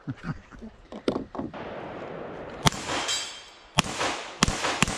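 Semi-automatic pistol fired four times: sharp single shots starting about halfway through, the gaps between them growing shorter toward the end.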